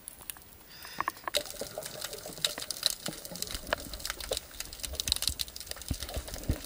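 Water sloshing around the camera as it goes under, then about a second in a dense, irregular crackle of sharp clicks heard underwater.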